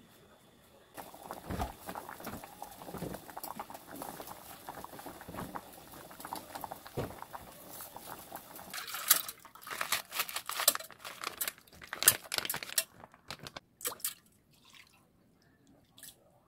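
Water boiling in a pot of acorn jelly strips being blanched, a steady bubbling with crackles and pops that grows louder with sharp pops for a few seconds past the middle. Near the end only sparse faint wet clicks remain.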